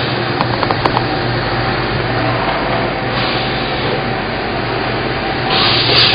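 Steady running noise of workshop machinery, with a constant low hum and a few light clicks in the first second.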